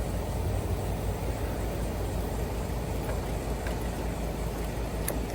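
Outdoor air-conditioning condenser units running, a steady hum of compressors and condenser fans, with a couple of faint clicks near the end.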